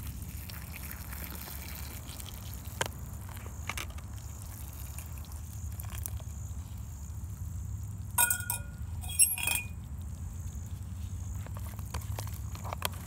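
Stainless steel cook kit being handled and stacked: two sharp metallic clinks that ring briefly, about eight and nine seconds in, amid light clicks and handling over a steady low rumble.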